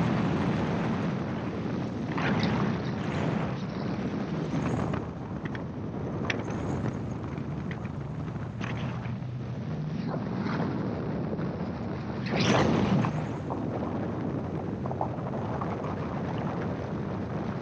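Gyroplane in cruising flight: its engine and propeller drone steadily under heavy wind rush on the microphone, which swells in louder gusts about two and a half seconds in and again about twelve and a half seconds in.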